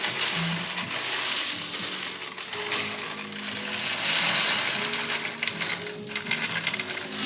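Coffee beans pouring into an espresso machine's bean hopper: a continuous dry rattle of many small hard pieces, rising and falling in strength, over background music with sustained notes.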